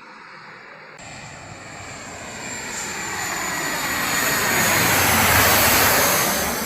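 C-130J-30 Super Hercules' four Rolls-Royce AE 2100 turboprops and propellers passing low overhead on landing approach. The noise, with a thin high whine over it, builds to a peak about five seconds in, then starts to fade.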